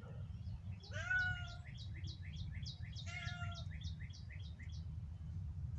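Injured cat crying out twice, two short pained meows, while a bird sings a run of short falling notes repeated two or three times a second, over a steady low outdoor rumble.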